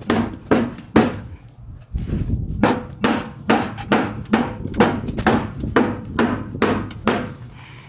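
Repeated sharp knocks, about two to three a second, with a pause of about a second near the start, over a steady low rumble.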